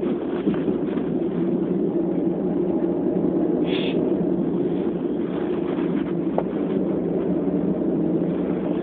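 Steady low rumble of wind buffeting a phone's microphone, with one short high-pitched sound about four seconds in.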